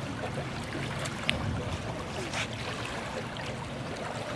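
River water running, with a steady rushing wash and small splashes, and one sharp click a little over a second in.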